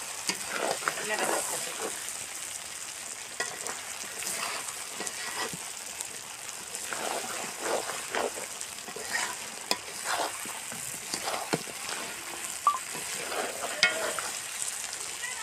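Spiced chicken pieces sizzling in a large metal wok (karahi) while a flat metal spatula stirs and scrapes them round the pan in irregular strokes: the meat is being dry-fried in its spice paste (kosha) until browned.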